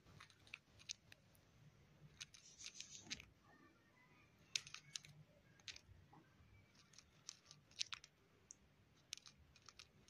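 Cockatiel grinding its beak: faint, irregular crunchy clicks, the sound of a content, drowsy bird settling to rest.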